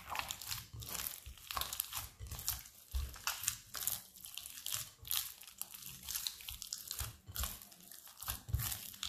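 Hands kneading a shaggy durum-wheat dough in a glass bowl: irregular pressing, squeezing and pulling noises as the dough is worked, with a few dull thuds among them.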